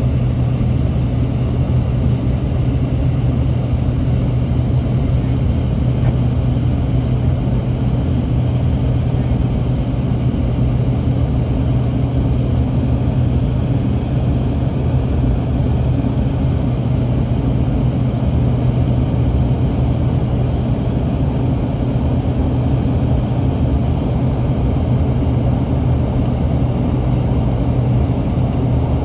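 Steady drone of a jet airliner's engines and airflow heard inside the passenger cabin during the climb after takeoff, with a strong low hum under it.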